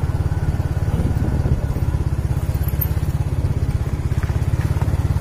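Small motorcycle engine running steadily under way, heard from on the bike itself, with a fast even exhaust beat.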